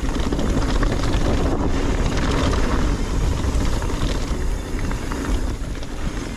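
Wind noise buffeting the microphone over the rumble of a mountain bike's tyres rolling down a dry dirt trail, with scattered small clicks and rattles from the bike and loose stones.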